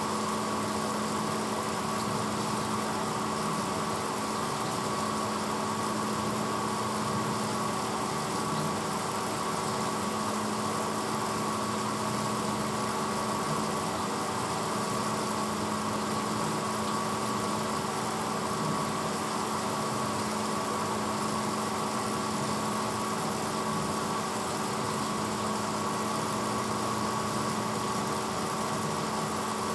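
1986 Hotpoint Potwasher dishwasher running steadily mid-cycle: a constant motor hum with a clear steady tone over an even wash of noise.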